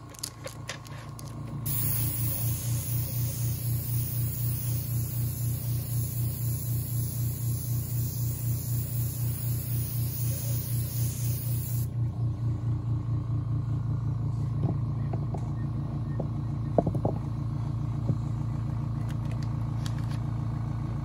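Small airbrush compressor running with a steady pulsing hum, and the hiss of the airbrush spraying paint from about two seconds in until about twelve seconds in. A few light knocks come later.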